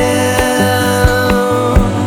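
Background music: a Russian-language song, the singer holding one long note over a steady drum beat and bass.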